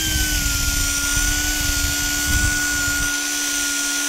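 Central Pneumatic 2-inch random orbital air sander running at 90 psi while sanding a metal casting: a steady high whine over the hiss of its air exhaust, with a low rumble from the pad on the metal. The pitch drops slightly about half a second in, as it bears on the work.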